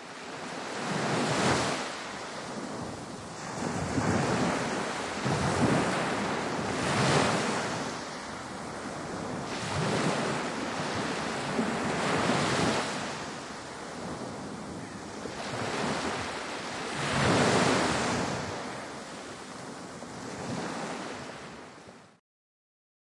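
Ocean waves washing and rushing, swelling in surges every two to three seconds. The sound cuts off suddenly near the end.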